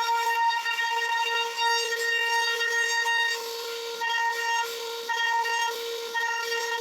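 CNC router spindle whining at one steady high pitch, its level swelling and dipping every second or so as the bit cuts into the wood.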